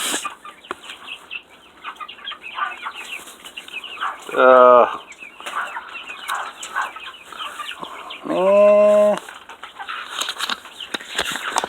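A mixed flock of chickens clucking steadily, with two loud, drawn-out calls from one bird, about four seconds in and again about eight seconds in.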